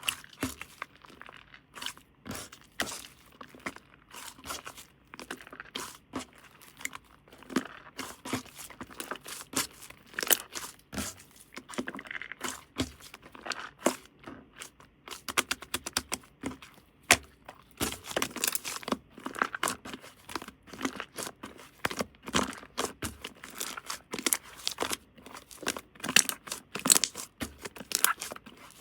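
Close-up crinkling and tearing, a dense run of sharp crackles with some louder snaps.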